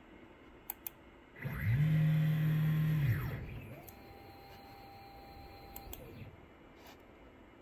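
Axis motors of a home-built CNC router, driven by a Centroid Acorn controller, whining as the gantry makes a rapid move: the pitch ramps up, holds for about a second and a half, and ramps back down. A quieter, higher steady whine from a second, slower move follows for about two and a half seconds, and a couple of sharp clicks come just before the first move.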